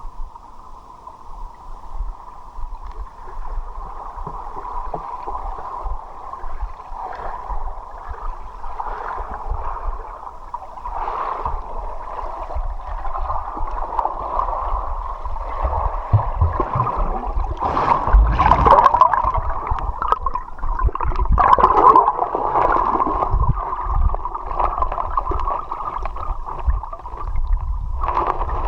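Muffled gurgling and rushing of river water heard with the microphone submerged, growing louder with stronger churning surges about two-thirds of the way in.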